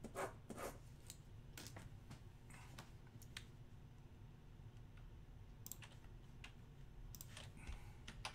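Faint, scattered clicks of a computer mouse and keyboard: a handful in the first three seconds, a quiet stretch, then a few more near the end.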